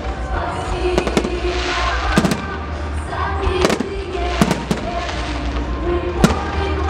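Aerial fireworks shells bursting, sharp bangs every second or so, some in quick pairs, over music playing with sustained notes.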